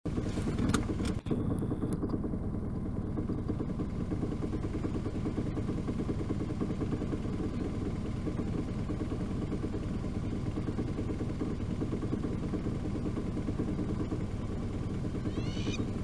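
Steady low rumble of a vehicle engine running, with a few clicks near the start. A bird gives a short run of falling chirps near the end.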